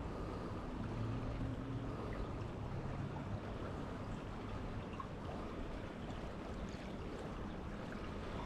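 Small creek flowing steadily, the water running and rippling.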